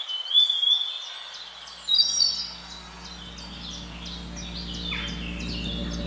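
Birds chirping: many short, high calls, some dropping in pitch, with a brief higher trill about a second in. A low steady music drone fades in underneath from about a second and a half in.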